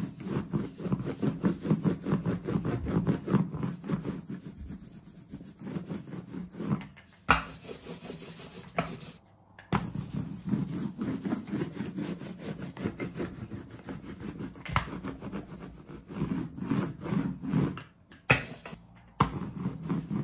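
Small hand brayer rolled back and forth over an inked linocut block: a fast, repeated rubbing that breaks off abruptly a few times.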